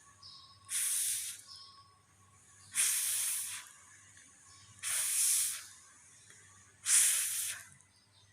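A woman pronouncing the voiceless consonant /f/ four times in isolation: four breathy hisses, each under a second long, about two seconds apart.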